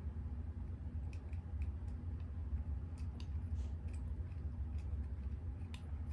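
Light, scattered clicks and scratches from a small plastic container being handled while a stag beetle is coaxed out of it, its claws gripping the plastic, over a steady low hum.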